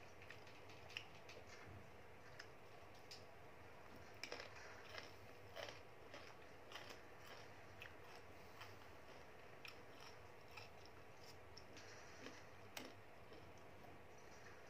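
Faint eating sounds: scattered soft clicks and ticks from chewing and wooden chopsticks against a plastic food container, over quiet room tone.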